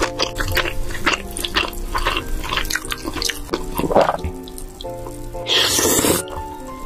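Close-miked wet eating sounds of creamy noodle pasta being chewed and slurped: many small wet smacks and clicks, and a longer slurp a little after five seconds.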